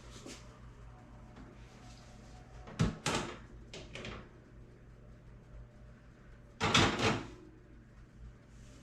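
Oven door being opened and, a few seconds later, closed again, with a knock and clatter about 3 seconds in and a longer, louder one near 7 seconds, while the cookies inside are checked for doneness.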